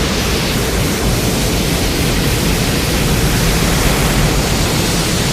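Loud, steady rushing noise, a cartoon sound effect, with no pitch or rhythm to it.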